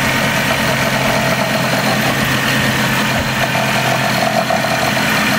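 Pickup truck's GM Vortec engine idling steadily, just after starting.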